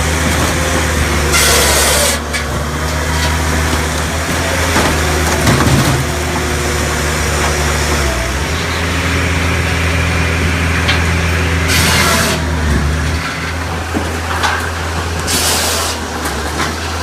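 Cord King firewood processor running steadily on its engine, a low hum under a steady drone, with three short bursts of hiss about a second and a half in, near twelve seconds and near the end.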